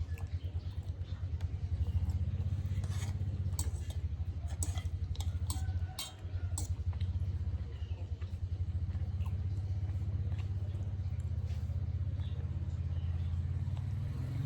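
Motorcycle engine running steadily at low revs, a low, fast, even chugging, with a few sharp clicks in the middle.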